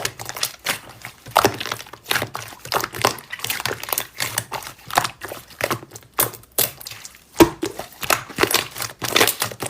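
Slime being squished and poked by hand, giving irregular sticky clicks, pops and crackles several times a second.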